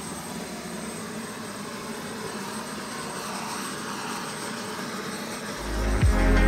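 Steady hiss of a model jet turbine with a faint high whine. About five and a half seconds in, electronic music with a heavy bass beat starts.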